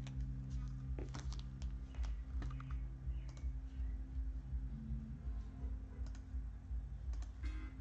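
A run of light, sharp clicks and taps, clustered in the first few seconds and sparser later, over quiet background music with sustained low notes.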